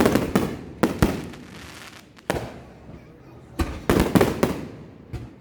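Fireworks going off: a string of sharp bangs at irregular intervals, each followed by a fading rumble. There is a loud one at the start, two close together about a second in, one past two seconds, and a cluster of several near four seconds.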